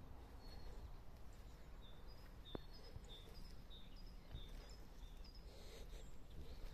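Faint bird chirping: a string of short high notes, two to three a second, over a low rumble of outdoor noise. A single sharp click comes about two and a half seconds in.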